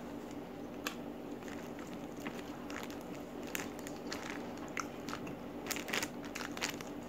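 Close-up eating sounds: scattered crunches, crackles and wet clicks as green-chili fried chicken is chewed and picked apart by hand. A steady low hum runs underneath.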